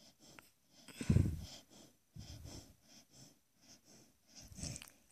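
Sleeping dog snoring with its mouth open: a loud snorting snore about a second in, then two softer wheezy snores.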